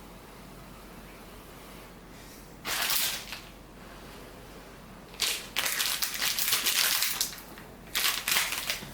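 Instant ramen noodles being slurped three times: a short slurp about three seconds in, a longer one of about two seconds past the middle, and another near the end.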